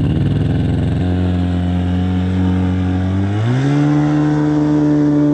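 A motor vehicle's engine running loud and steady as it drives off. About three and a half seconds in, the engine note rises quickly as it revs up, then holds at the higher pitch.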